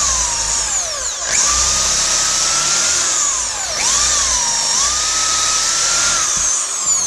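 Electric drill running with its motor whine rising and falling as the speed changes. It winds down and starts up again twice, about a second in and near four seconds, and stops near the end.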